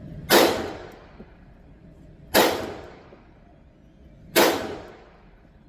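Three shots from a MAC-9 9mm pistol, fired slowly and evenly about two seconds apart, each with a short echoing tail.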